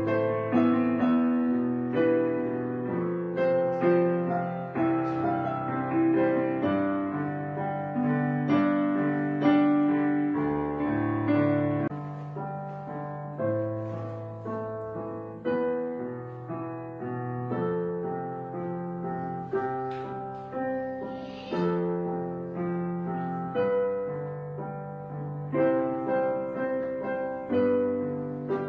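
Background piano music: a steady flow of struck notes and chords, each one fading after it is played.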